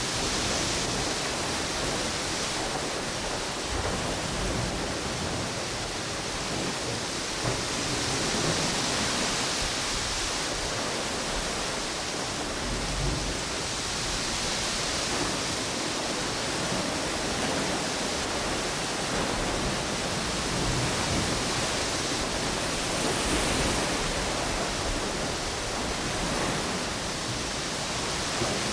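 Ocean waves washing onto a beach, mixed with storm wind through palm trees: a steady rushing noise whose hiss swells and eases every few seconds, with occasional low rumbles from the gusts.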